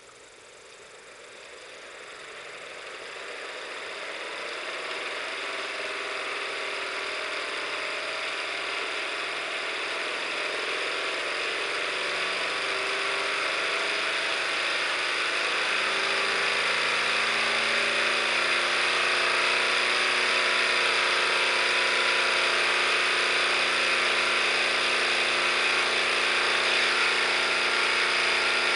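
Visible V8 clear plastic model engine's rotating assembly spinning up to about 3,500 rpm during the run-in of a new crankshaft. It is a whirring rattle that rises in pitch and grows louder over roughly the first fifteen seconds, then holds steady.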